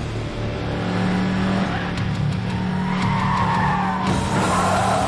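Car engine running with a steady low drone, then tyres squealing in a wavering, rising and falling screech from about three seconds in.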